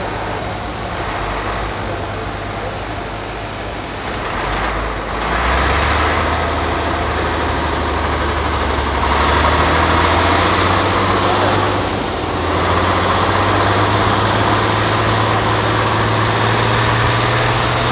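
Diesel engine of a vintage forestry forwarder running steadily. It gets louder about five seconds in, and its pitch steps up slightly around twelve seconds in as the revs rise.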